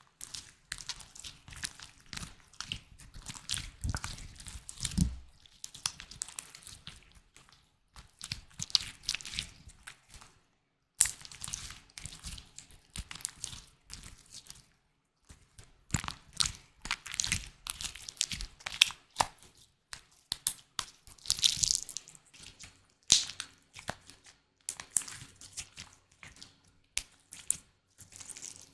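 Close-miked ASMR trigger sounds of a small object being handled: irregular clusters of crackling, crunching and light clicks, with short pauses between them.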